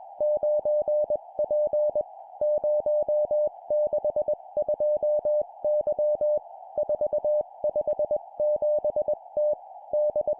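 Morse code (CW) practice tone near 600 Hz keyed at 20 words per minute, sending four-character groups of three digits and a letter, with short pauses between groups. It sounds over a steady narrow band of hiss around the tone, with faint clicks at the keying edges.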